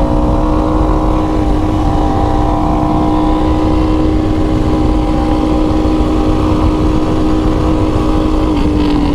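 Yamaha R1 inline-four sport-bike engine running at a steady, almost unchanging engine speed, like a constant-throttle cruise, over a dense low rumble. The pitch dips slightly near the end.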